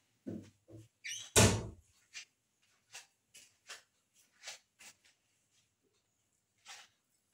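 Ghee melting in a hot stainless steel pan, crackling with scattered short pops. A single louder knock comes about a second and a half in.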